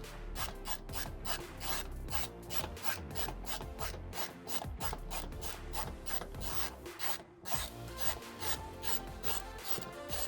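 Background music with a fast, steady percussive tick about five times a second over held chords and bass.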